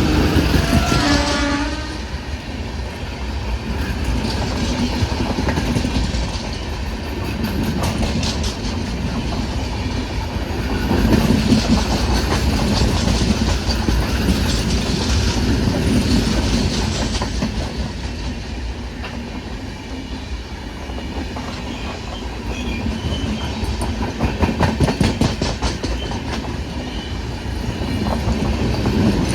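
A train running past on the track, its wheels clacking steadily over the rail joints wagon after wagon, with a short horn blast in the first two seconds.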